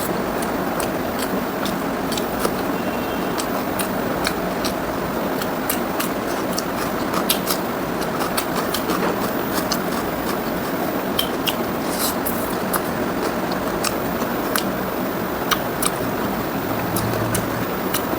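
Close-miked eating sounds of pork ribs with rice and gravy being chewed: irregular wet smacks and sharp clicks of chewing, about one to several a second, over a steady hiss.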